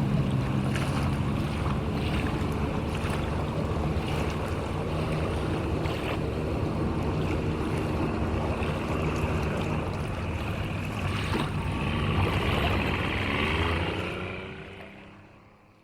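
Heavy truck engine running with a steady rumble. It grows louder for a couple of seconds near the end, then fades out.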